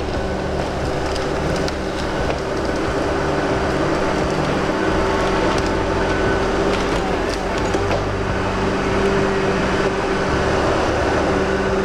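Diesel engine of a Tigercat 234B knuckleboom log loader running steadily as it works its boom and grapple, with a skidder's engine close behind. A few light clicks and knocks sound over the engine drone.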